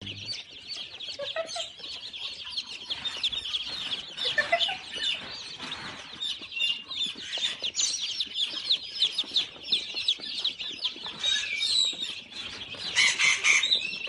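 A crate full of young chicks peeping all at once, a dense, continuous chorus of high, short overlapping cheeps.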